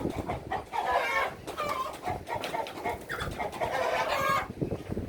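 Chickens clucking and squawking in quick, repeated calls, stirred up by being caught and moved out of their coop.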